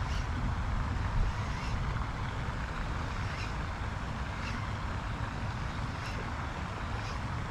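Steady low rumble and hiss of outdoor background noise, with a few faint ticks.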